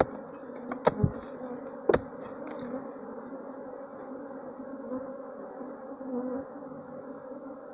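A swarm of bees buzzing steadily in a termite mound, the colony stirred up and described as very fierce. In the first two seconds a few sharp knocks sound as a wooden tool strikes the mound.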